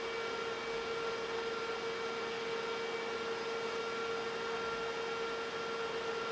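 Enterprise server's cooling fans running steadily at speed: an even rushing hiss with a steady whine on top.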